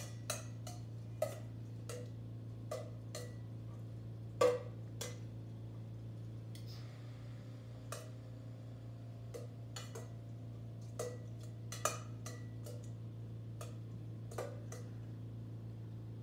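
Metal tongs clicking and scraping against a stainless-steel mixing bowl as salad greens are tossed with vinaigrette: irregular light clinks, the loudest about four and a half seconds in, over a steady low hum.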